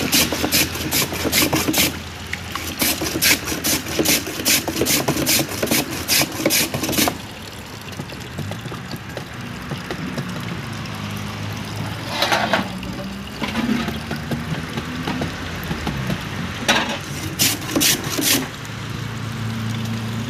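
A block of ice rubbed back and forth by hand across a traditional wooden ice-shaving board with a blade, making a rhythmic scraping of about two or three strokes a second that stops about seven seconds in. After that a low engine hum runs in the background, with a few short scrapes near the end.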